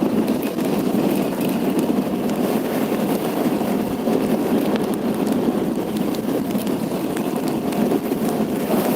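Steady running and road noise from a moving vehicle, with wind buffeting the microphone.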